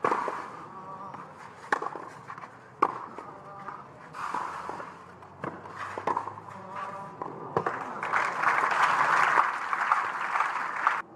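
Tennis rally on a clay court: sharp racket-on-ball strikes about every second and a half, then crowd applause for the last three seconds or so once the point is won.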